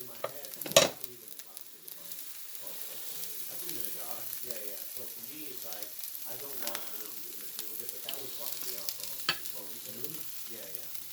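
Marinated carne adobada sizzling as it fries in a pan and is stirred, with a sharp knock about a second in and another near the end.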